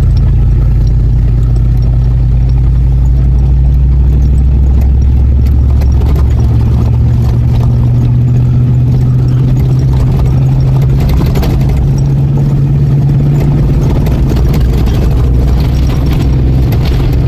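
Ford Bronco II engine running steadily while the truck is driven. Its note rises about six seconds in and then holds at the higher pitch.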